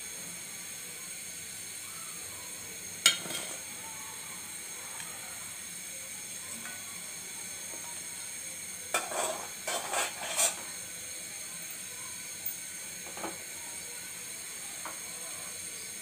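Hot cooking oil in an iron karahi sizzling quietly and steadily, with a sharp metallic clank about three seconds in and a short run of clattering utensil knocks around ten seconds in.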